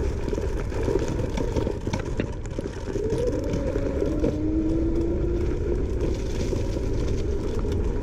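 Langfeite L8S dual-motor electric scooter riding over rough ground: a steady motor whine that rises slowly in pitch through the middle as it speeds up, over a low rumble with frequent rattling clicks and knocks from the terrain.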